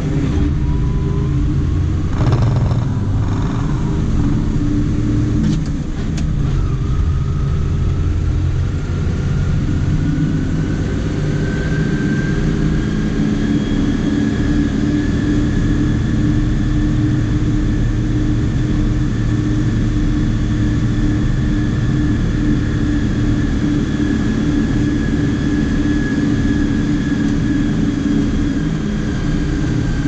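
Diesel tractor engine running steadily while driving, with a whine that climbs slowly in pitch over about the first twelve seconds, then holds and dips slightly near the end. There are short knocks about two and six seconds in.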